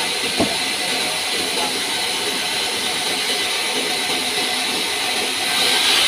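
Sawmill band saw running with a steady hiss, growing louder near the end as a pine slab is fed into the blade. A single sharp knock about half a second in.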